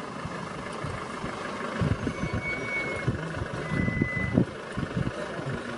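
Vehicle engine idling, with two short high beeps about a second and a half apart.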